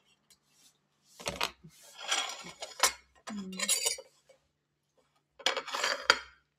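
Metal fork clinking and scraping against a glass plate, in several short spells with a few sharp clicks, mixed with the crinkle of banana leaves as a steamed suman (sticky rice cake) is unwrapped and cut.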